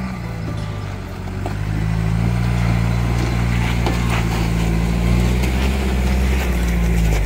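Toyota Hilux pickup's engine labouring at low speed up a rocky off-road track, growing louder about a second in as the truck comes close, with stones crunching under its tyres.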